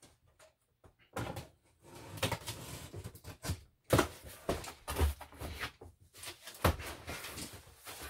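Utility knife slitting packing tape on a cardboard box, then the cardboard flaps being pulled open, with scraping and several sharp knocks of cardboard.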